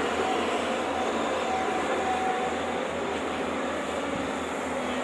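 Excavator's diesel engine running steadily under load, an even mechanical drone with no breaks.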